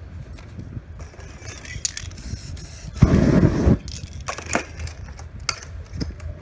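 Aerosol spray paint cans being handled: sharp clicks and knocks as cans are picked from the box, a hiss of spray, and one loud rushing burst about three seconds in that lasts under a second.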